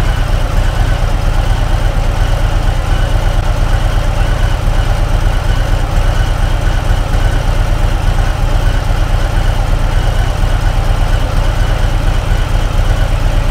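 Harley-Davidson Sport Glide's Milwaukee-Eight 107 V-twin idling steadily, warming up from a cold start about five minutes in.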